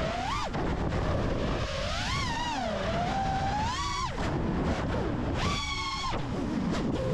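FPV quadcopter's brushless motors and propellers (Ethix Stout 2306 1750 kv) whining as the throttle is worked, the pitch rising and falling, dropping away abruptly about four seconds in, then a short steady high whine around five and a half seconds in. A low rush of prop wash and wind runs beneath.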